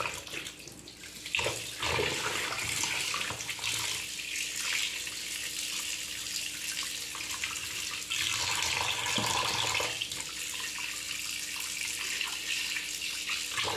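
Kitchen tap running into a plastic bowl in a stainless steel sink while hands rub and rinse fish pieces, the water splashing over them. The flow is quieter at first and louder from about two seconds in, with a stretch of heavier splashing about eight seconds in.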